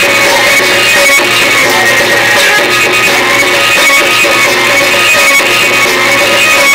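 Loud live Chhattisgarhi Panthi folk music from a seated ensemble: a sustained melody line over hand-drum rhythm, without a break.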